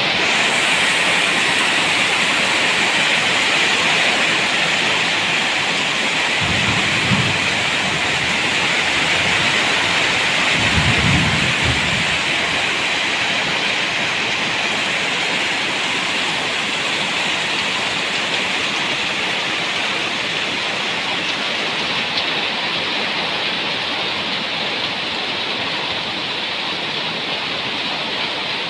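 Steady heavy rain falling, with two short low rumbles of thunder, about seven and eleven seconds in.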